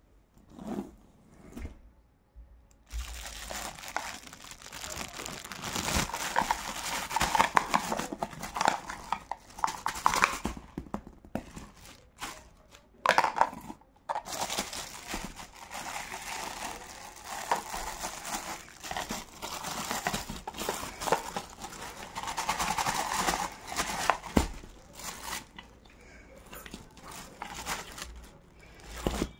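Clear plastic packaging crinkling and rustling as it is handled and pulled off the parts of a new electric egg boiler. It starts about three seconds in and goes on in long stretches, with a brief pause midway.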